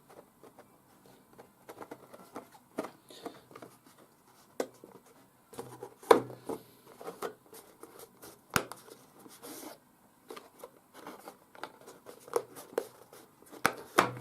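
Irregular light clicks, taps and rustles of thin cardstock being handled, as a card model bridge side is lined up and slotted into notches in the road bed.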